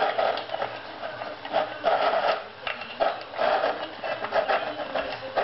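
A dog eating dry kibble from a bowl on the floor: quick, irregular crunching and the clatter of kibble against the bowl, in repeated bursts.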